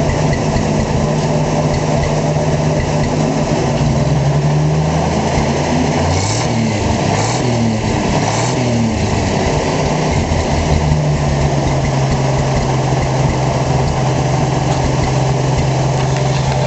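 1951 Chevrolet pickup's 235 cubic-inch straight-six running through its single stock exhaust, idling steadily. About halfway through it is revved up and down three times in quick succession, then it settles back to a steady idle.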